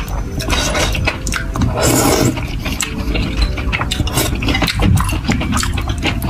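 Close-miked eating sounds of spicy saucy noodles: wooden chopsticks stirring in the bowl, a short wet slurp about two seconds in, then chewing with many small wet smacks and clicks.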